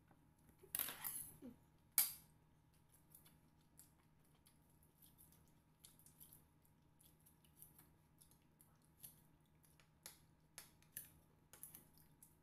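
Kitchen scissors snipping at food on a plate: a run of quiet, scattered clicks, with one sharp louder click about two seconds in. A short scraping noise comes just before it, about a second in.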